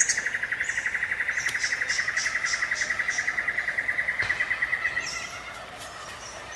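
Wild animal calls: a long, rapid trill of evenly spaced pulses on one steady pitch, which fades out about five seconds in. Short high chirps of birds sound over it.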